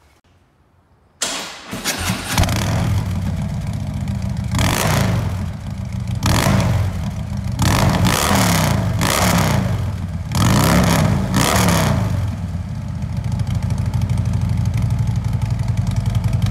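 2014 Harley-Davidson Ultra Limited's V-twin engine starting about a second in, through freshly fitted SVT Boneshakers slip-on mufflers. It is revved in a series of throttle blips, rising and falling in pitch, then settles to a steady idle near the end.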